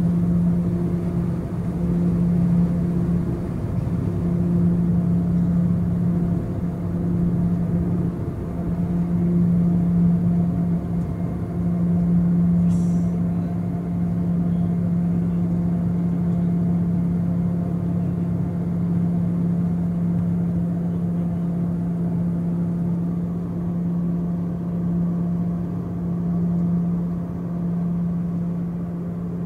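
Twin turboprop engines and propellers at takeoff power, heard from inside the cabin: a steady loud drone with a strong low propeller hum, through lift-off and climb-out.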